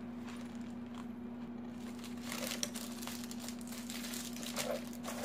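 Crinkling and rustling of packaging being handled, starting about two seconds in, over a steady low hum.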